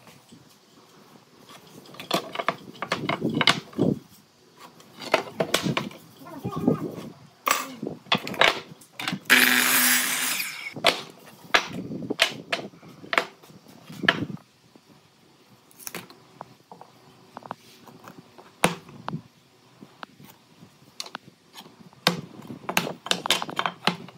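Wood and tools being handled at a workbench: a string of irregular knocks and clatters, with a burst of hissing about nine seconds in that lasts a second and a half.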